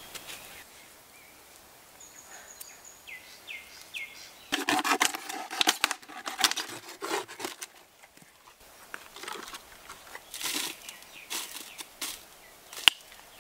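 Hands and a stick scraping in sandy soil, with a bird calling a few short notes; then a knife cutting into a plastic water bottle, the thin plastic crinkling and crackling loudly for a few seconds. More scraping and rustling of sand follows, with one sharp click near the end.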